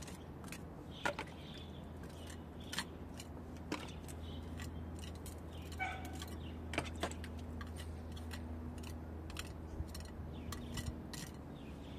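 Small metal spatula spreading and scraping patching plaster onto a concrete block wall: irregular short scrapes and taps, over a steady low hum.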